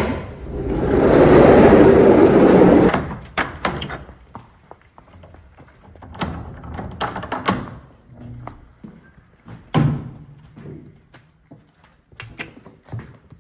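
A stable's sliding door pushed open, a loud scraping rumble lasting about three seconds, followed by scattered knocks and clatters.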